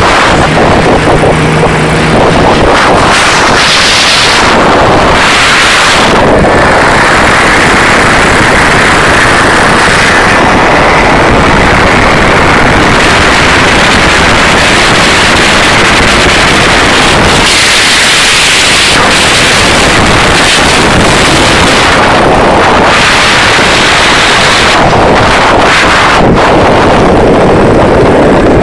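Open ultralight aircraft in flight: its engine running steadily at a loud level, mixed with heavy wind rushing over the microphone.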